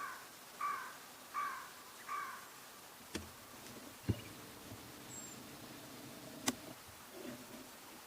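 A crow cawing in an even series, four caws about 0.7 s apart, followed by a few sharp clicks.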